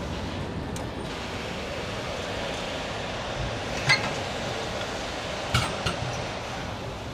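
Factory-floor noise of a bus assembly line: a steady hum of machinery with a sharp metallic clink about four seconds in and two more close together near the end.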